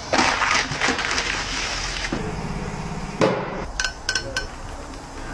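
A run of sharp knocks and clicks from tools at work on a car tyre, then a short low buzzing hum about two seconds in, and a few more light clicks.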